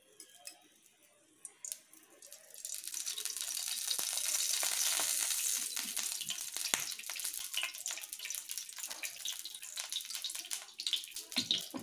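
Cooking oil in a hot pan starting to sizzle about two and a half seconds in: a hiss that swells, then settles into steady crackling and spitting as the oil heats.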